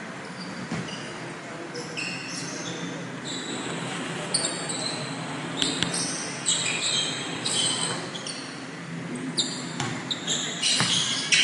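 Basketball play on a hardwood gym court: many short, high-pitched sneaker squeaks, more of them in the second half, over balls bouncing and a background of voices.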